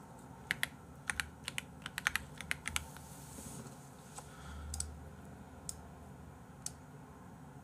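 Irregular light clicks and taps, a quick cluster in the first three seconds, then a few single clicks spaced about a second apart.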